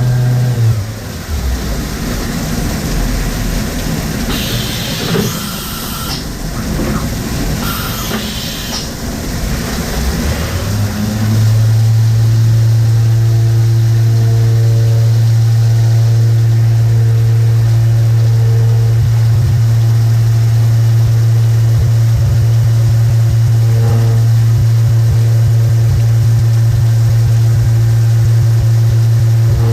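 CNC milling machine running; its spindle winds down about a second in. A stretch of mechanical noise follows with two short hissing air bursts. The spindle then spins back up near the middle and runs steadily.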